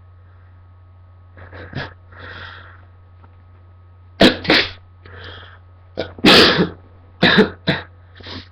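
A person sneezing three times in a row, loud and sudden, with softer breathy sounds leading up to the first. The last sneeze ends in short cough-like bursts.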